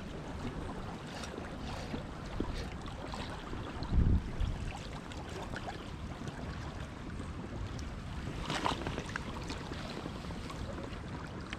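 Steady rush of river water around a raft, with wind buffeting the microphone. A dull low thump about four seconds in is the loudest moment, and a short sharper rustle comes near the end.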